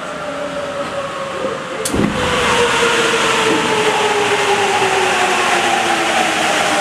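Sapporo Tozai Line subway train running, a whine sliding slowly down in pitch over rumble and hiss. There is a sharp knock about two seconds in, after which the hiss gets louder.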